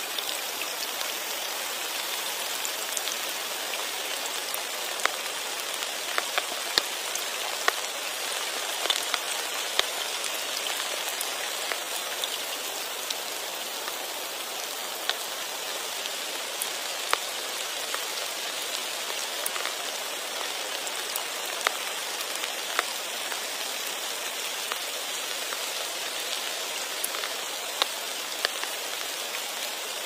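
Rain falling on a pond: a steady, even hiss of rain with scattered sharper drop ticks.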